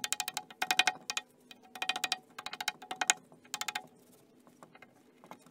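Background music: bursts of quick, tinkling, chime-like notes over a steady tone, in short groups with brief pauses.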